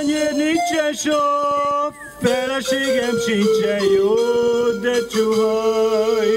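A man singing into a handheld microphone, holding long notes that bend in pitch.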